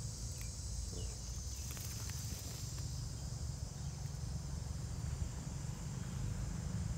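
Insects chirring steadily in a high, even band, over a low steady rumble.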